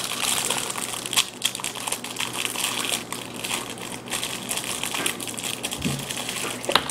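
Plastic fortune cookie wrappers crinkling and tearing as they are unwrapped by hand, a dense rustle full of small crackles.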